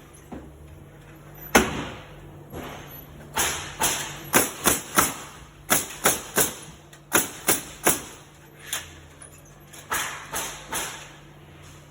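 Repeated sharp knocks on wood as wooden pallets are nailed during repair, coming irregularly in quick clusters of two to four, over a steady low machine hum.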